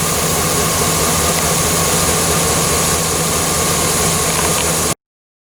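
An engine idling steadily, with a faint steady whine over its low running note; the sound cuts off abruptly to silence near the end.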